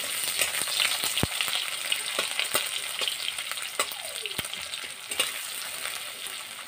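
Sliced onions sizzling in hot oil in a metal wok, with a metal spatula stirring them and clicking against the pan about once a second.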